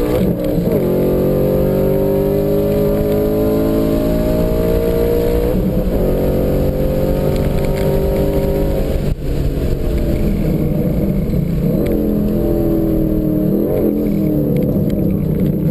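2012 Ford Mustang Boss 302's 5.0-litre V8 heard from inside the car under full throttle, its pitch climbing through the gears with upshifts about half a second in and near six seconds. About nine seconds in it lifts off for hard braking, and the revs rise and fall in short blips as it downshifts near the end.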